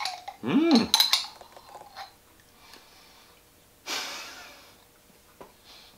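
Small metal spoon scraping and clicking against the inside of a glass baby-food jar, with a short hummed "mm" while eating, then a breathy exhale about four seconds in that fades over about a second.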